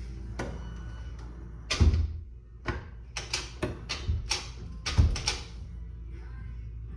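Background music with a run of irregular clicks and knocks, two heavier thumps about two and five seconds in.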